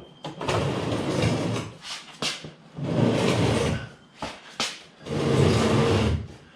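A heavy pallet dragged out from under a lathe in three long scraping pulls, with short knocks between them.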